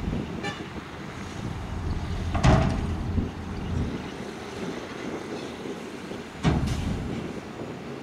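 Heavy diesel dump trucks and a bulldozer idling and working with a steady low rumble. A brief high tone sounds just after the start, and two loud bangs come about two and a half seconds in and again four seconds later, the first the loudest.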